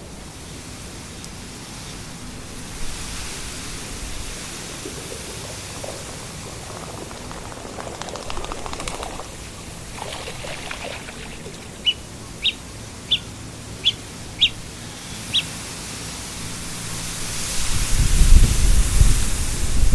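Wind blowing through reeds with a steady rustling hiss. A bird gives a series of six short, high chirps about half a second apart midway through, and near the end a strong gust buffets the microphone with a loud low rumble.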